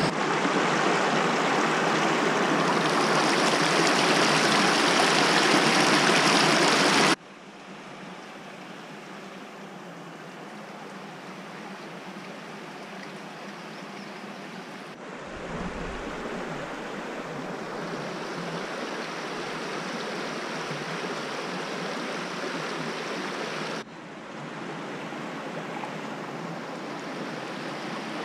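Shallow creek running over rocks and riffles: a steady rushing of water. Loud at first, it turns abruptly quieter about seven seconds in, with further sudden shifts in level later.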